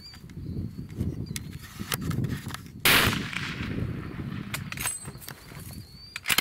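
A single hunting rifle shot about three seconds in, its report fading over about a second. Low rumbling noise and scattered sharp clicks run around it.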